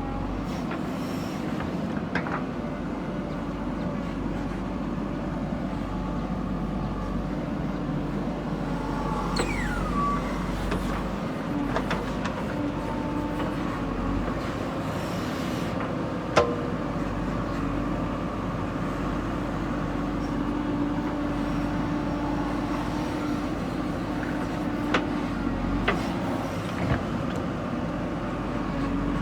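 JCB 3DX backhoe loader's diesel engine running steadily as it works, with scattered sharp clanks, the loudest about halfway through, and a brief falling squeal about a third of the way in.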